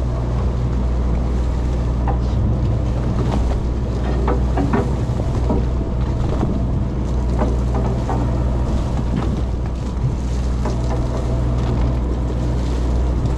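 A party fishing boat's engine humming steadily, with wind on the microphone and the wash of the sea.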